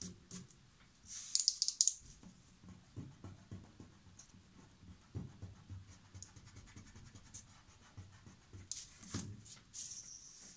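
A black marker scratching over pencil outlines on paper in short strokes, with a quick run of rapid strokes about a second in and a longer, steadier stroke near the end. The sheet is slid and turned on the table, with a few soft knocks of hand and paper.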